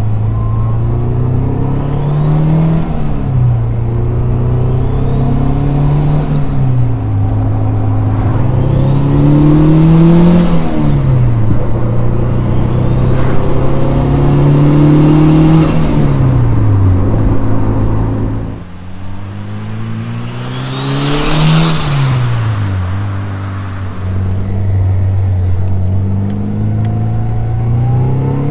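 Honda Civic EG6's turbocharged 1.6-litre VTEC four-cylinder (GT3076 turbo) revving up and dropping back about five times. Each rise carries a thin turbo whistle that climbs with the revs and cuts off as they fall.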